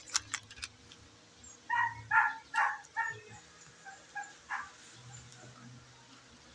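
A dog barking in the background: a quick run of about five barks starting about two seconds in, then a few fainter barks.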